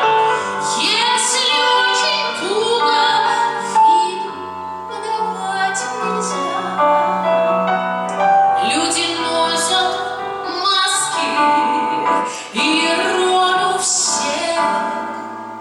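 A woman singing an aria in an operatic voice over piano accompaniment, holding some long notes.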